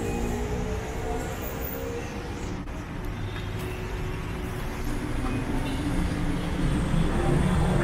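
City street ambience, with road traffic running past that grows louder about six seconds in.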